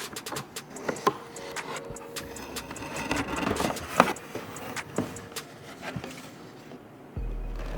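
Many small irregular clicks and light knocks of hardware being handled, with a sharp click about four seconds in. A steady low hum starts abruptly near the end.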